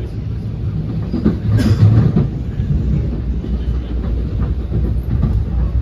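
NJ Transit MultiLevel passenger car rolling along the rails at speed, heard from inside the coach: a steady low rumble, with a louder clatter about one and a half seconds in.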